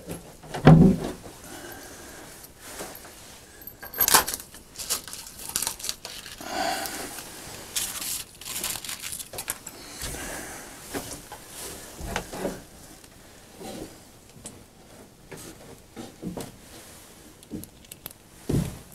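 Handling noise from fitting a plywood feeder against a wooden 2x4: scattered knocks of wood on wood and light clicks and rattles of metal brackets and tools. The sharpest knocks come about a second in and about four seconds in.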